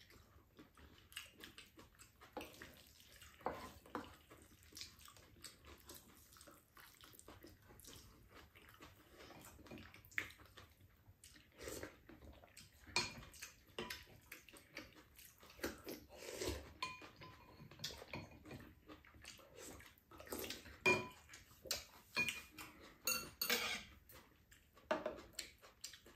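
Spoon and metal chopsticks clinking and scraping against a frying pan and ceramic bowls during a meal. The small clicks and knocks come at irregular moments and are busiest near the end.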